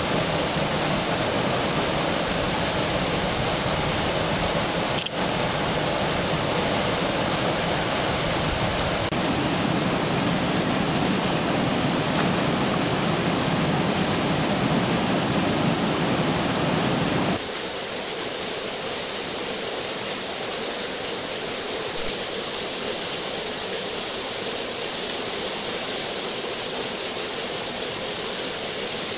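Steady rush of a small river pouring over a weir into churning white water. About two-thirds of the way through it abruptly turns quieter and thinner, losing most of its deep rumble.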